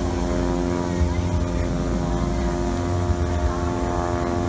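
Steam locomotive standing at the station platform, idling with a steady hum over a low rumble.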